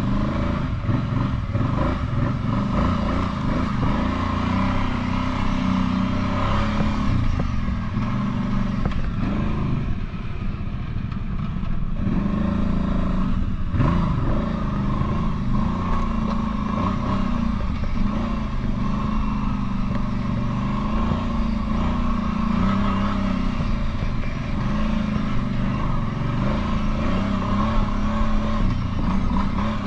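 Kawasaki Brute Force 750 ATV's V-twin engine running under way on a trail, its pitch shifting with the throttle and easing off briefly about ten seconds in before picking back up.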